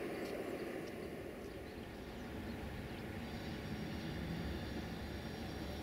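Faint, steady distant rumble with no distinct events; a deeper low hum sets in about three seconds in.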